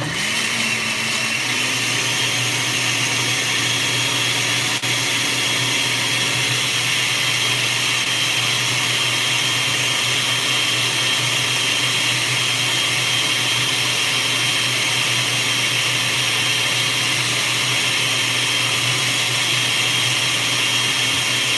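Countertop blender switching on and running steadily at full speed, puréeing bananas with water. The motor's hum rises a little as it comes up to speed in the first second or two, then holds a steady high whine.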